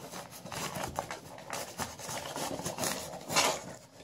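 A sheet of junk-mail paper rustling and scraping in the gap under a wooden door as a cat claws at it, tearing it. The scraping comes in irregular bursts, the loudest about three and a half seconds in.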